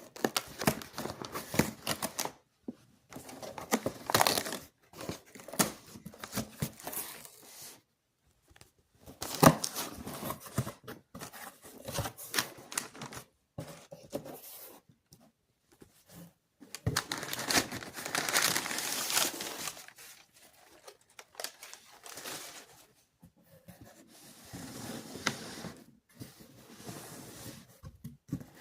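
Box packaging being torn open and crinkled by hand, in irregular bursts with brief pauses and occasional sharp clicks.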